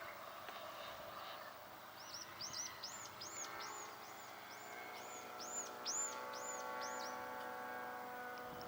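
A small songbird sings a run of about a dozen quick, repeated high arched chirps lasting about five seconds. Under it, a radio-controlled model aerobatic airplane drones at a distance with a steady tone that dips slightly in pitch near the end.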